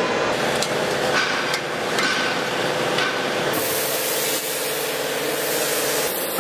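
Sharp knocks and taps of hand tools on metal during dismantling of a vehicle interior, several in the first three seconds, over a steady workshop hum.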